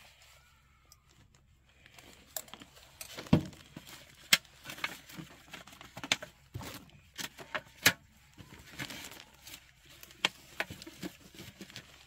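Irregular sharp clicks and taps with light crinkling: food, utensils and wrapping being handled while a burrito is put together.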